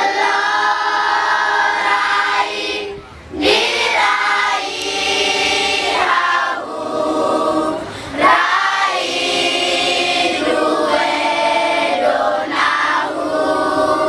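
Children's choir singing together in long held phrases, with a brief break for breath about three seconds in.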